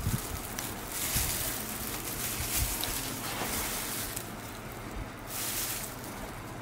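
Flat steel callus blade scraping thickened, dry skin on the toes and sole. The scraping runs on for about three seconds, stops, and comes back briefly near the end.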